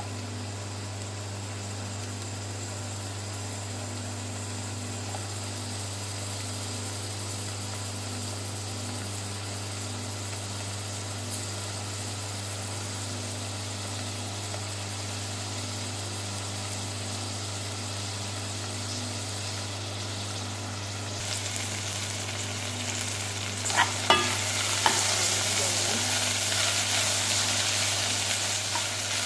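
Chopped onion and garlic frying in oil in a pot, a steady sizzle over a low hum. About 21 seconds in the sizzle grows much louder, and from a few seconds later a spoon stirs them, knocking against the pot.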